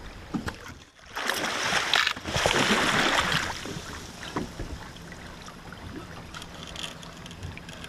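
Heavy water splashing beside the boat as a hooked musky is brought to the landing net, starting about a second in and lasting two to three seconds, then dying down to a quieter wash.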